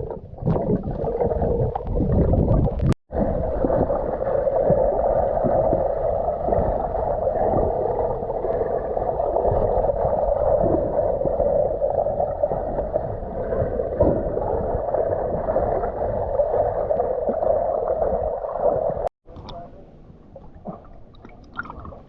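Muffled rushing and gurgling of water heard through a camera held underwater, with the dull tone and no high end typical of underwater recording. It cuts in abruptly about three seconds in and cuts out a few seconds before the end, with rougher splashing and paddling noise around it.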